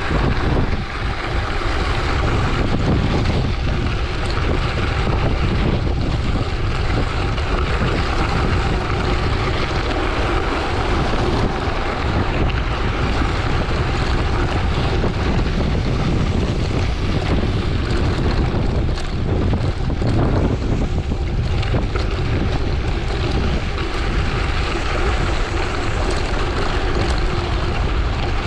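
Loud, steady wind rushing over the microphone of a bicycle on a fast downhill, mixed with the rumble of tyres on gravel.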